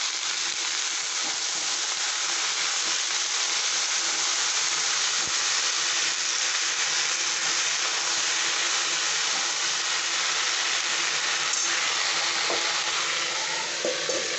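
Thin-cut potato sticks sizzling steadily in hot oil in a metal kadai, stirred now and then with a spatula. Near the end a metal lid is set over the pan.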